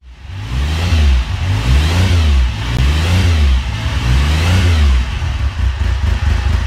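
Motorcycle engine being revved up and down repeatedly, the revs rising and falling about once a second.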